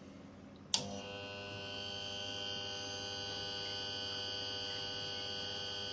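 Arçelik refrigerator compressor clicking on about a second in, then humming steadily on mains power without starting. Together with the periodic click, the technician takes this as a sign that the compressor motor has failed.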